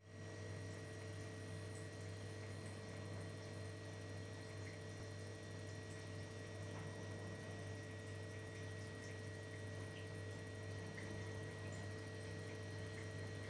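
Steady low electrical hum with a faint, constant high tone above it.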